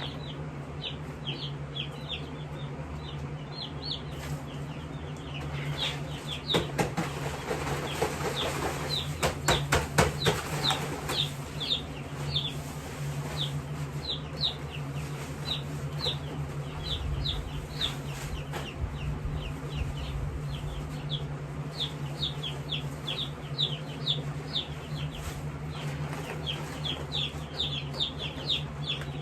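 Jumbo Cornish cross chicks peeping constantly, a stream of short, high peeps that fall in pitch, over a steady low hum. Between about 6 and 11 seconds in, a spell of rustling and clattering rises above the peeping.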